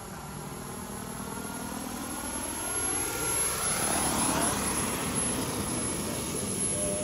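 Miniature Aircraft Whiplash 700 turbine RC helicopter flying in: the turbine whine and rotor noise grow louder as it comes down and passes low and close. The pitch glides as it goes by, loudest about four seconds in.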